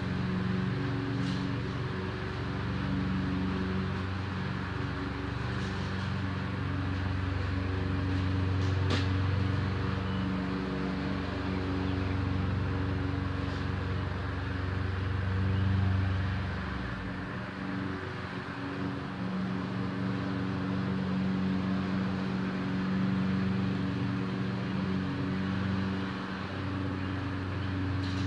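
Toro Recycler walk-behind lawn mower's single-cylinder four-stroke engine running steadily under mowing load.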